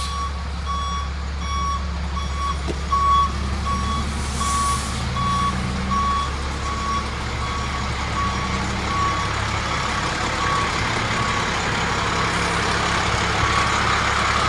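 Fire rescue truck's backup alarm beeping steadily, about two beeps a second, as the truck reverses, over the steady drone of its running engine; the beeping stops about ten seconds in while the engine keeps running.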